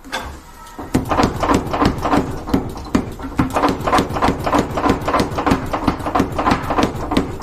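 Rapid, rhythmic hammer strikes, about four a second, each with a short ring, beginning about a second in after a single first blow.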